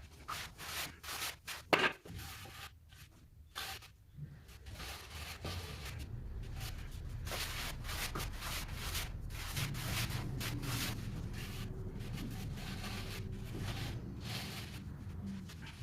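Trowel scraping and smoothing mortar while screeding a sloped floor base for tile: a few separate short scrapes and knocks, then steadier rubbing from about six seconds in.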